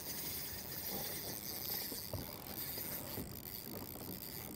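Water lapping and slapping lightly against a kayak's hull, in irregular small knocks over a steady hiss.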